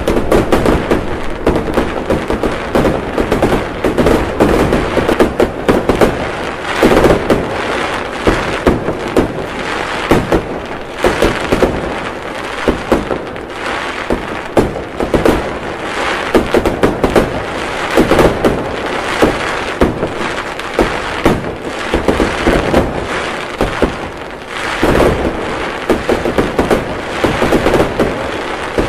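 Fireworks going off without pause: dense, overlapping bangs and crackles over a constant rumble, with louder clusters every few seconds.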